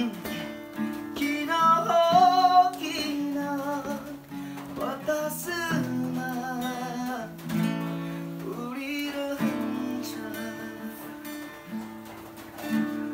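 Acoustic guitar music with singing.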